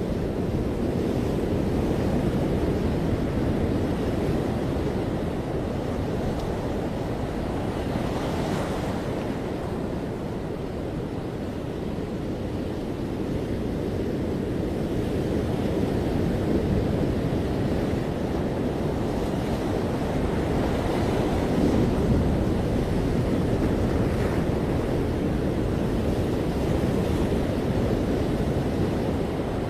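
Ocean waves breaking and washing on a beach: a continuous rushing surf that swells and eases, loudest about two-thirds of the way through, with wind buffeting the microphone.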